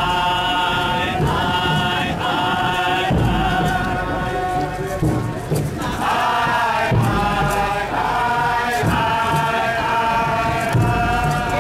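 A group of Bobo Shanti Rastafari marchers chanting together in unison, in held, sung phrases with short breaks between them.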